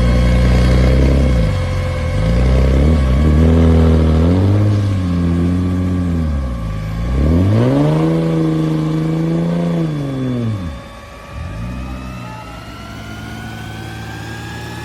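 Vehicle engine revving up and down several times, its pitch rising and falling with each push of the throttle, as it works under load. Near the end it eases off and a fainter whine climbs slowly in pitch.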